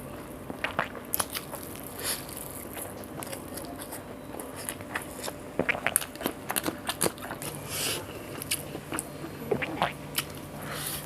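Close-miked eating sounds: a person biting and chewing food, with crunches, wet mouth clicks and smacks coming irregularly.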